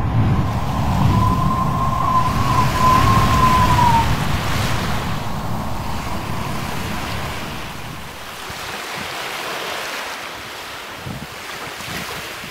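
Low outdoor rumble of wind and distant traffic with a faint wavering tone for a few seconds, then the rushing of breaking surf from the logo sting, fading away toward the end.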